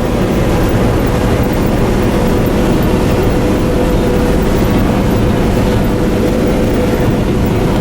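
Combine harvester running steadily, heard from inside its cab: a constant mechanical drone with a steady hum.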